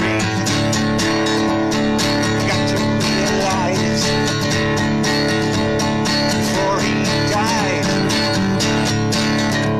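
Acoustic guitar strummed steadily, with a man singing over it in places.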